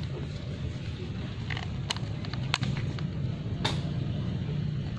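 A few sharp clicks and knocks as the angle grinder's plug and cable are handled at the socket, over a steady low background hum. The grinder itself is not yet running.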